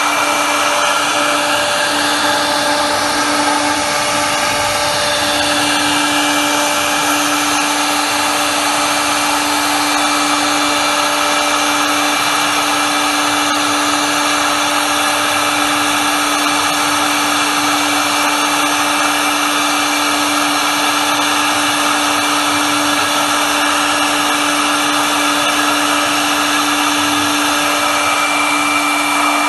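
CNC router spindle running at a steady speed while its small end mill cuts letter outlines into a wood panel: a constant hum and a high whine over an even rush of cutting noise.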